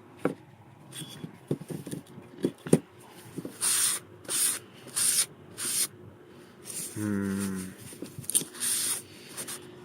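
Hand plane blade rubbed back and forth on the coarse side of a water stone: a run of short rubbing strokes about two a second, with a brief pause broken by a short hum from a voice.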